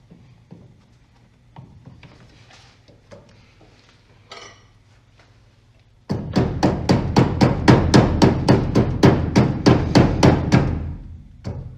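Faint scattered clicks, then about six seconds in a sudden, loud, very even series of sharp knocks at about four a second, with a brief break near the end.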